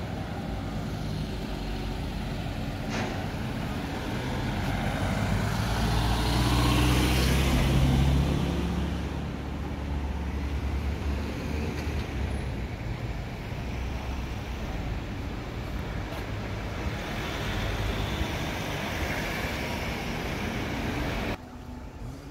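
City road traffic: a steady wash of engines and tyres, with one vehicle's engine swelling and passing close about six to eight seconds in. The sound drops suddenly about a second before the end.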